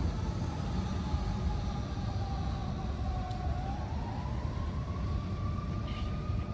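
An emergency siren wailing: a single tone that dips slightly about three seconds in and then slowly rises and holds, over a steady low rumble.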